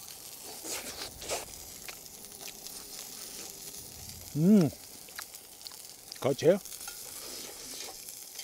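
Thick-cut meat frying in a generous amount of oil on a hot griddle: a steady sizzle. A man lets out one short voiced exclamation about halfway through, and a word is spoken near the end.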